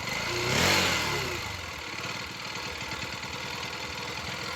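Bajaj Pulsar NS200 single-cylinder engine idling, with a short throttle blip about half a second in, then settling back to a steady idle. Its mechanical noise is, by the owner's account, timing-chain noise from a worn chain or a faulty chain tensioner.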